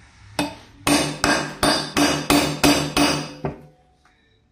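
Hammer striking a hand eyelet setter on a stone slab, clinching metal eyelets and washers into a shoe upper: about nine sharp metallic strikes, roughly three a second, stopping about three and a half seconds in.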